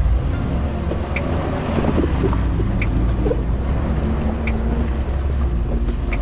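Suzuki Jimny's engine running as it drives off-road, with wind buffeting the microphone and a short sharp click about every second and a half.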